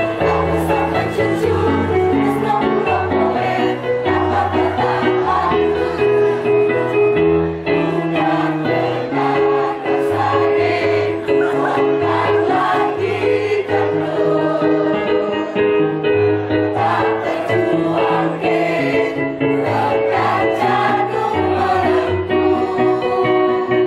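Mixed choir of men and women singing together over an accompaniment of sustained low bass notes that change every second or so.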